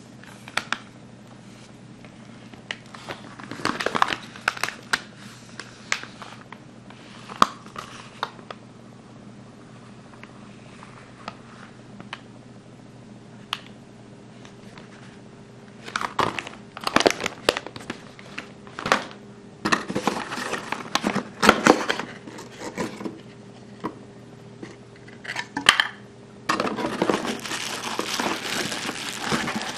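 Paper instruction leaflet rustling and crinkling in irregular bursts as it is handled. Near the end it turns into continuous crinkling of plastic bubble wrap as hands reach into the lens box.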